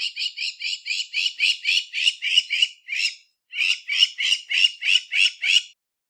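Crowned lapwing calling: a fast series of repeated high notes, about four or five a second, with a brief break a little past halfway before the series starts again.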